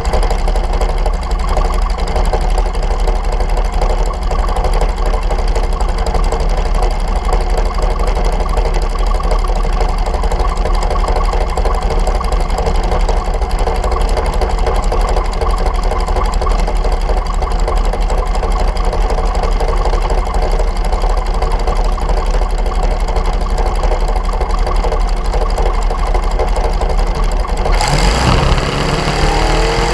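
Dragster engine idling with a rough, uneven beat. Near the end the revs climb in a rising pitch.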